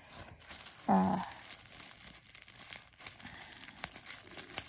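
Packaging crinkling and tearing as a subscription package is opened by hand, with a short vocal sound about a second in.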